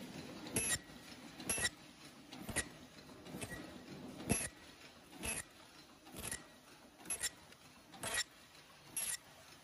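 Paper cup forming machine running, with a sharp metallic clack about once a second as its mechanism cycles, over a steady mechanical hum.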